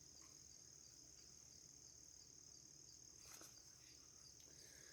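Near silence with faint, steady, high-pitched cricket chirring in the background, and one faint tick about three seconds in.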